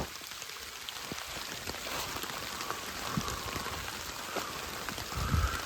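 Steady rain falling, with many scattered sharp ticks of single drops, and one low thump near the end.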